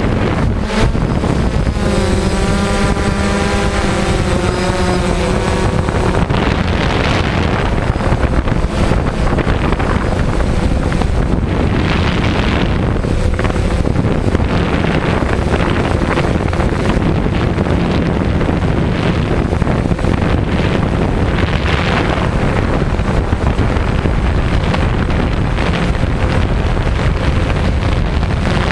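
DJI quadcopter's motors and propellers running, heard through the onboard camera's microphone along with steady wind buffeting. A wavering pitched hum stands out for a few seconds near the start.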